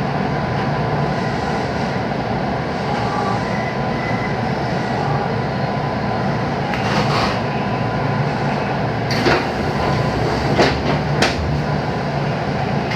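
Inside a JR West 221-series electric train: a steady rumble of the train, with a few sharp clacks in the second half.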